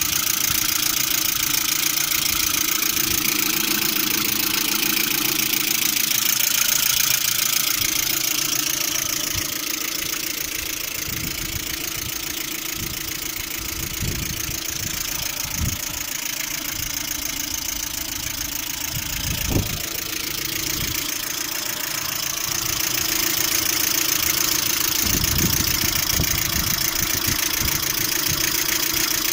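Lada Priora four-cylinder engine running under the open hood with a knocking from the timing-belt side, plus a few separate low thumps around the middle. The knock is there hot and cold, and the owner suspects the water pump rather than the hydraulic lifters.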